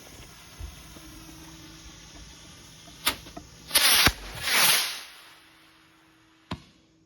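Small consumer firework rocket launching: a pop, then a loud whoosh as it takes off about four seconds in, and a single sharp bang a couple of seconds later. Crickets chirp steadily underneath.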